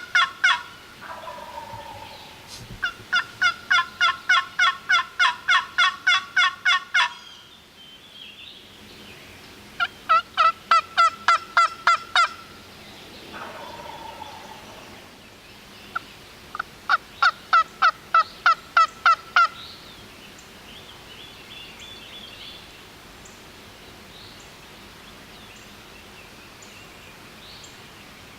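Wild turkey calling: three long runs of rapid, evenly spaced yelps. A lower, falling gobble-like call answers after the first run and again after the second. The last third is quieter, with only faint bird chirps.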